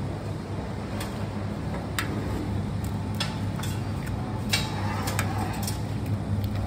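Raw eggs being cracked one after another against the rim of a stainless steel bowl: several short, sharp taps at uneven intervals. A steady low hum runs underneath.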